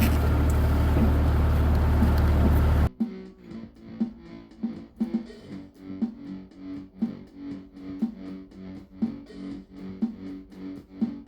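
A steady vehicle engine rumble that cuts off abruptly about three seconds in, replaced by background guitar music with evenly spaced plucked notes.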